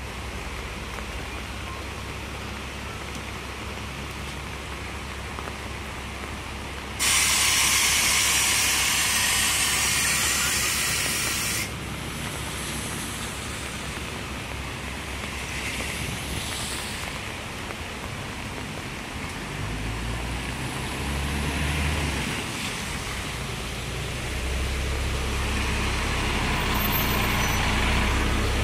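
Double-decker bus standing at a stop with its engine running. A loud hiss of compressed air starts suddenly about seven seconds in and cuts off sharply four to five seconds later. Later the engine grows louder and deeper as the bus pulls away.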